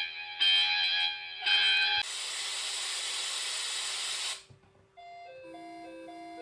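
Emergency alert broadcast audio: three roughly one-second electronic tone bursts like an EAS data header, then about two seconds of static hiss that cuts off suddenly. After a short gap, a simple repeating melody of short notes over a held tone starts about five seconds in.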